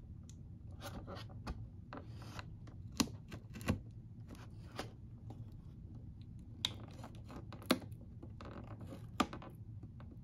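Scissors blade slicing through the clear tape tab seals on a cardboard action-figure box, faint scratching and rustling of the card with a handful of sharp clicks as the blade snips and the box is handled.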